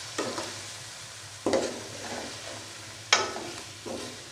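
Chicken pieces frying in oil with ground spices in an aluminium pot, a steady sizzle, while a steel spoon stirs them and scrapes and knocks against the pot about four times.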